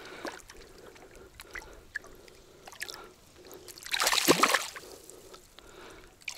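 A small crucian carp thrashing and splashing in shallow water as it is released by hand: one loud splash of under a second about four seconds in, with a few faint taps and drips around it.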